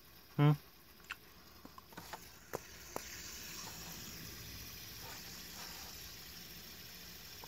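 Fidget spinner spinning close to the microphone: a steady, soft airy whir that sets in about three seconds in. Before it, a short hum from the person about half a second in, the loudest sound, and a few light clicks.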